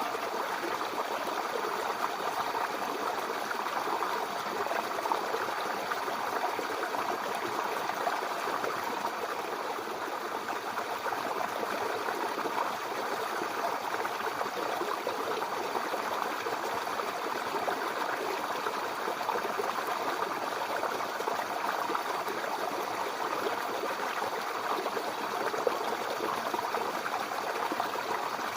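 Mountain river or stream flowing steadily over rocks: a continuous, even rush of water.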